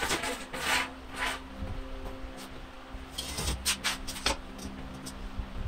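A welded steel battery bracket scraping across a concrete floor and knocking against a hanging Tesla battery module: a few short scrapes, then a run of sharp clicks and knocks about three to four seconds in, over a low steady hum.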